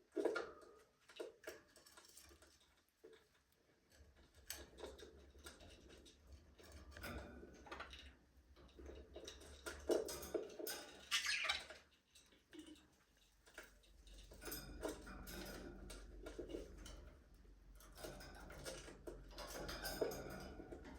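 Budgerigars moving about a cage: scattered clicks, taps and scratches from beaks and feet, with brief faint chirps. A faint steady low hum comes in about two-thirds of the way through.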